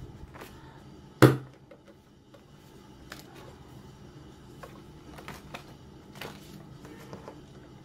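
Pages and clear plastic sheets of an A6 ring binder journal being handled and flipped, with one loud sharp snap about a second in, then light clicks, taps and rustles.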